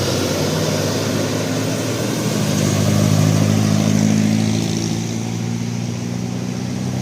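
A bus driving past with its engine humming. It grows louder about two seconds in and fades away after about five seconds, over steady road noise.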